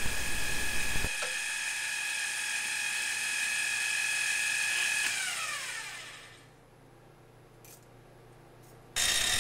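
Milling machine spindle motor running with a steady whine, then winding down in falling pitch and stopping about six seconds in: the drilling cycle is over. A louder machine sound cuts in abruptly near the end.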